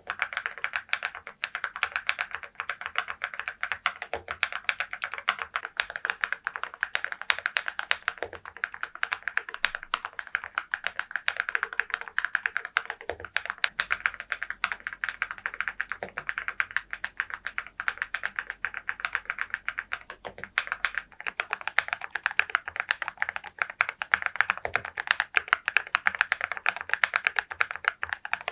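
Fast, continuous typing on a mechanical keyboard fitted with ceramic (porcelain) keycaps: a dense stream of bright key clacks.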